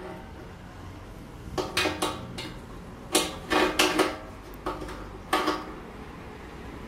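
Metal clinks and rattles from a homemade go-kart steering assembly as the flat steel steering arm is swung back and forth on its pivot. The sharp, ringing metal knocks come in four short clusters, about a second and a half in, from about three to four seconds in, and twice more near five seconds.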